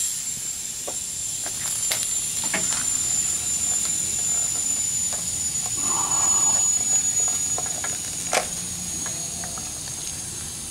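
Air hissing out of a tire through its open valve stem, the Schrader core pulled so the tire goes flat: a thin, high whistling hiss that slowly fades. Small clicks and knocks from handling an air-hose quick-connect coupler, with one sharp click about eight seconds in.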